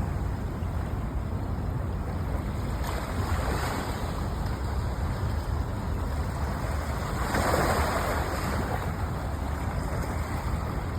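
Steady rushing noise of wind and water outdoors, with wind rumbling on the microphone. The noise swells a little about three and a half seconds in and more strongly about seven and a half seconds in.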